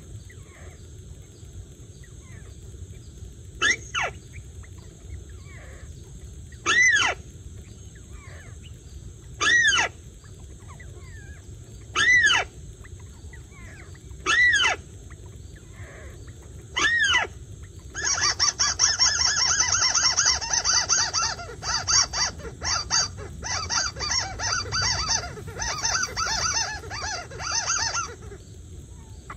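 Mắt xéo birds calling at a trap. Single short arching calls come about every two and a half seconds, then a little past halfway a rapid chattering run of calls goes on for about ten seconds.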